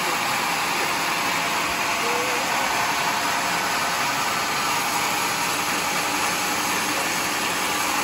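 Sawmill saw running steadily, a constant even hiss and whine, while a large teak stump is fed along the carriage to the blade.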